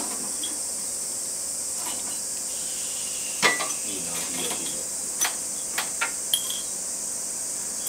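Steady high-pitched drone of summer cicadas, with scattered clinks and knocks of dishes and utensils being handled; the loudest is a sharp clatter about three and a half seconds in, with a few lighter clinks after it.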